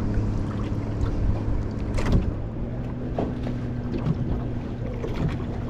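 Boat motor running steadily, with a low hum whose pitch steps up slightly about two seconds in, and a few light knocks over it.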